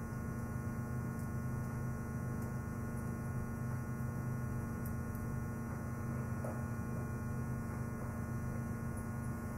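Steady electrical mains hum, with a few very faint handling ticks.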